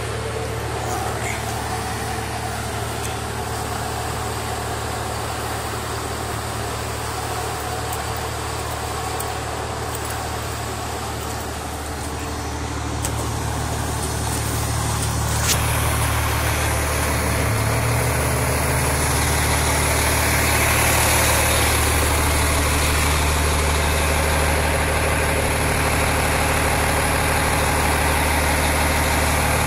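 Fire engine's engine idling: a steady low hum that grows a little louder about halfway through.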